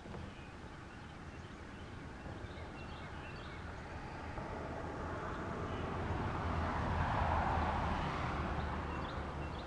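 A distant engine swells and fades, loudest about seven seconds in, over a steady low hum.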